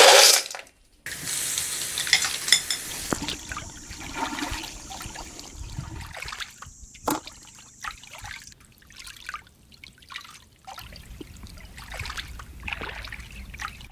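Water trickling and splashing in short irregular bursts, with scattered small knocks.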